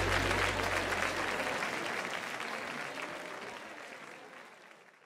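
Audience applause, a dense patter of clapping that fades out steadily and stops at the very end. The song's last low bass note dies away under it in the first second and a half.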